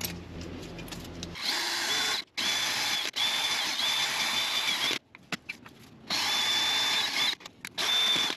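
A 20-volt cordless drill spinning a wire cup brush against a steel brake caliper bracket, scrubbing rust and buildup out of the clip channels. It runs in several bursts of one to two seconds with short pauses between them, a motor whine over the scratchy brushing.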